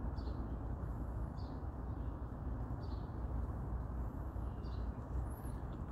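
Outdoor ambience: a steady low background rumble with a few short, high bird chirps every second or two.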